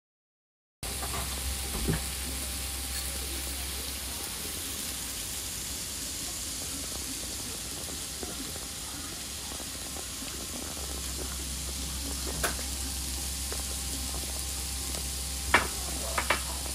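Samgyeopsal (pork belly) sizzling steadily on a tabletop grill, starting about a second in, with a few sharp clicks, the loudest near the end.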